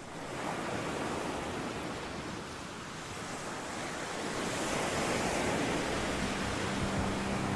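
Waves washing on the shore, a steady even rush of water noise. A low steady hum comes in about six seconds in.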